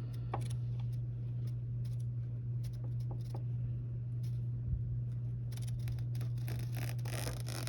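Small multitool scissors of a Leatherman PST II snipping through material, with a few single clicks at first and then a quick run of cuts in the last two seconds, over a steady low hum.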